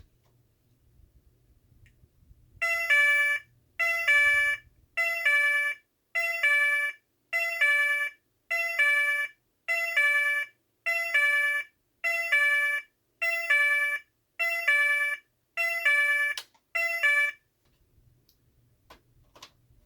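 Federal Signal SLM800R electronic sounder playing one of its selectable alarm tones. It is a pulsed two-tone pattern of about a dozen short, loud, buzzy bursts a little over a second apart, each stepping between two close pitches. It starts about three seconds in and stops about three seconds before the end, followed by a few faint clicks.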